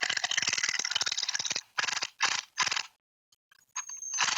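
Fast mechanical clicking rattle, like a ratchet or clutch, that breaks into three short bursts and stops for under a second near the end before resuming.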